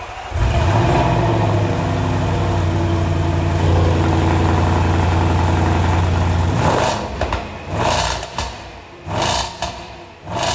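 Toyota Supra's engine starting, flaring briefly and settling into a loud, steady idle that stops about seven seconds in. It is followed by several quick whooshes.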